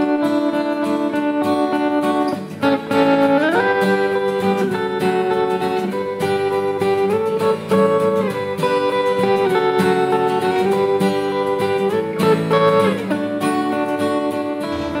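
Background music: a plucked guitar tune with notes that slide up and down in pitch.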